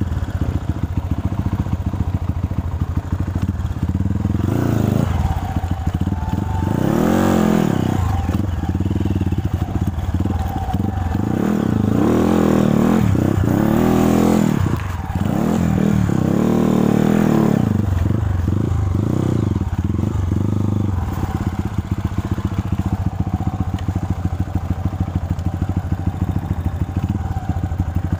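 Trail motorcycle engine idling, then revved up and down several times for about a dozen seconds, before settling into a steady low-speed run.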